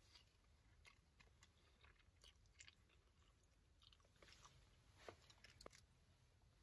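Near silence with faint eating sounds: soft chewing and a few light clicks of chopsticks against a lunch box, the two sharpest about five seconds in.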